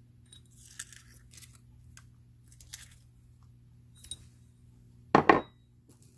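Dry bay leaves crinkling and rustling faintly as they are handled and dropped onto pork belly in a pot, with scattered light clicks. About five seconds in comes one short, much louder sound.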